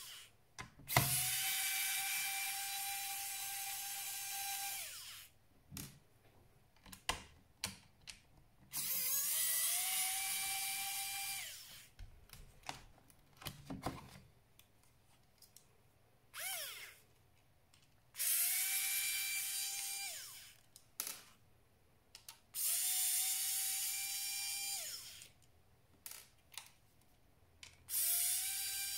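Small electric screwdriver running in about six bursts of up to four seconds, each spinning up quickly to a steady whine, as it works screws out of a laptop case. Light clicks and taps of handling fall between the bursts.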